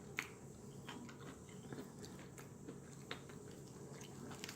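Faint chewing and wet mouth clicks of a person eating spicy fried chicken close to the microphone, with scattered soft clicks over a low room hum.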